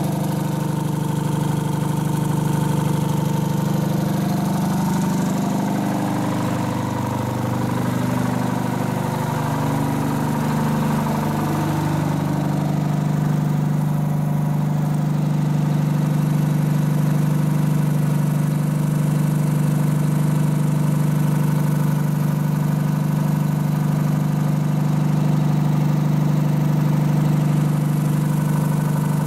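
Engine of a 1952 Unit 614 crawler crane idling steadily, with a higher tone wavering up and down for several seconds in the middle.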